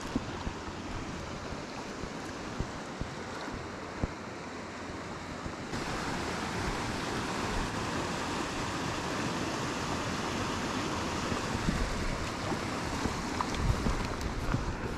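Creek water rushing, with wind buffeting the microphone. The rush gets louder about six seconds in, and a few low thumps of wind or handling come near the end.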